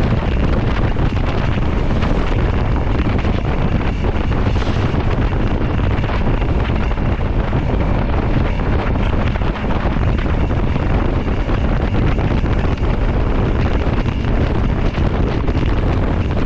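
Steady, loud wind rushing over the microphone of a moving motorcycle, with road and vehicle noise under it.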